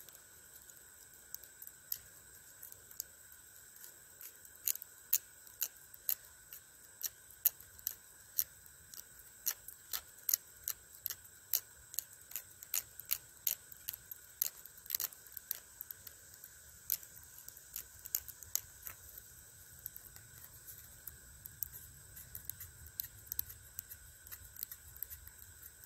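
Knife blade scraping tinder into shavings in short, sharp strokes, about two a second, beginning about two seconds in.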